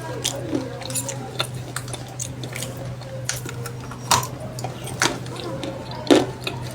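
Irregular crisp crunches and clicks, a few sharper and louder than the rest, over a steady low hum.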